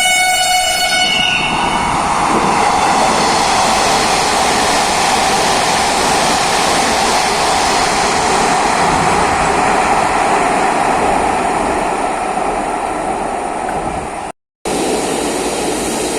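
Dhaka Metro Rail electric train sounding a brief horn, then running by with a loud, steady rush of wheels on rail. The sound cuts out completely for a moment near the end.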